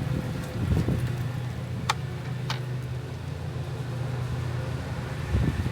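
A steady low mechanical hum runs throughout. Two light clicks come about two and two and a half seconds in.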